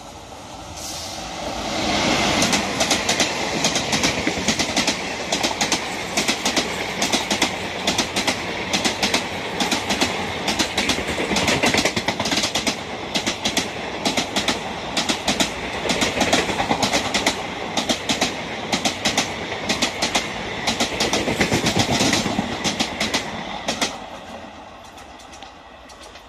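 Express passenger train hauled by a WAP-5 electric locomotive passing at speed. The locomotive's rush arrives about two seconds in, followed by a long train of coaches with a rapid, continuous clickety-clack of wheels over rail joints. The sound fades near the end as the last coach passes.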